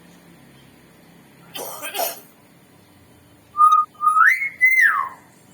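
Two short coughs, then a hill myna whistling: a brief flat note, then a louder whistle that rises, holds high in two parts and glides down at the end.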